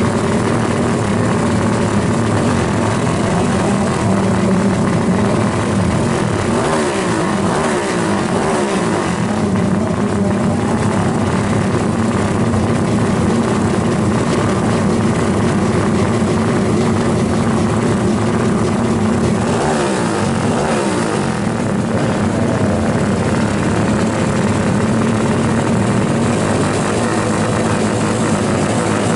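Drag-racing motorcycle engines running loudly and continuously, with the engine pitch sweeping up and down twice, a few seconds in and again about two-thirds of the way through, as engines rev or bikes pass.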